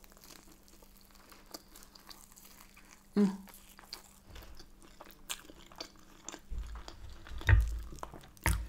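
Close-miked chewing of a bite of Yorkshire pudding: soft, wet mouth sounds with many small clicks. In the last couple of seconds a few low knocks and sharp clicks as a knife cuts food on a wooden serving board.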